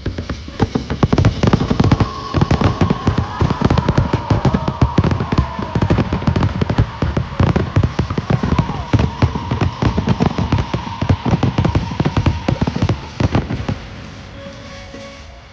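Fireworks display: a dense, rapid run of crackling bangs and pops that thins out and fades away near the end.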